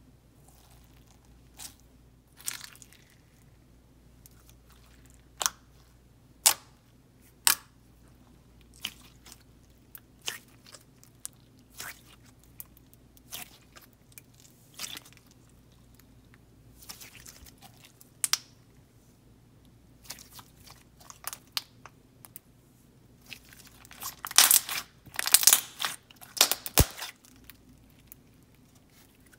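Clear slime with star glitter worked by hand, squished, folded and stretched, giving scattered sharp clicks and bubble pops. A dense run of crackling pops comes near the end.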